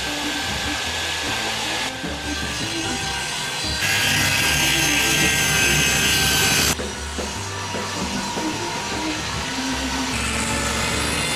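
Table saw running with a thin steady whine; about four seconds in, the blade cuts along the edge of a wooden board for about three seconds, the loudest part, then spins free again.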